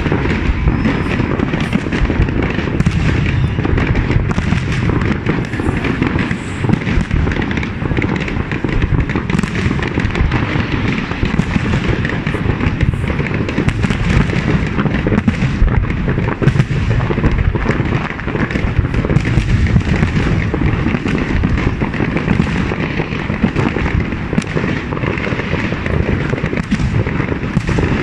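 Fireworks display: a dense, unbroken barrage of bangs and crackling as many shells burst one after another, with no pauses.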